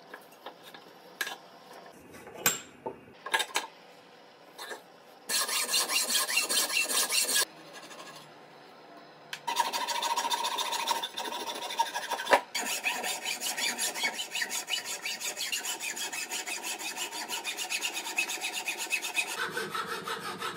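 Hand hacksaw cutting through the corner of a laminated knife-handle blank clamped in a bench vise: a few knocks and clicks as the work is set, then a short run of quick rasping saw strokes, a pause, and a long steady run of rapid strokes until the piece is nearly cut off.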